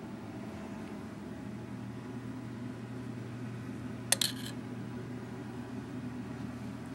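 Steady low mechanical hum, with two sharp clicks close together about four seconds in.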